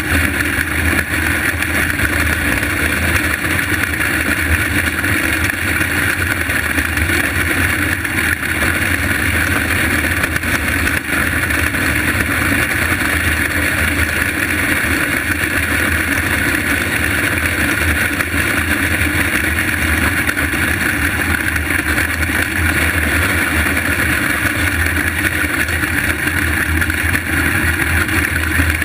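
On-board sound of a small winged dirt-track sprint car's engine running steadily at racing speed: a loud, even drone with little change in pitch.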